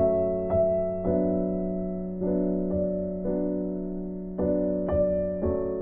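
Background piano music: chords struck about once a second and left to ring.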